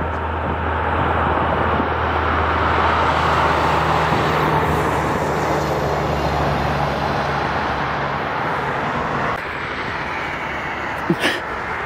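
Interstate traffic passing below: steady tyre noise with the low drone of a heavy truck's diesel engine, which fades out about halfway through. The noise drops suddenly about nine seconds in, and there is a single sharp click near the end.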